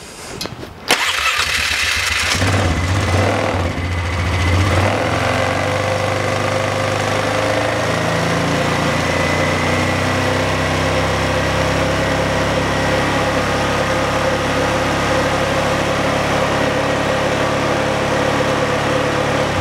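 Polaris Sportsman 500 ATV's single-cylinder four-stroke engine starting about a second in, running a little unevenly for the first few seconds, then idling steadily.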